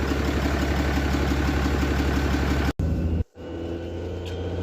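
A Cummins diesel truck engine idling with a steady, fast-pulsing rumble. The sound cuts out abruptly twice a little under three seconds in. The engine then returns a little quieter, with a faint high whine slowly rising in pitch.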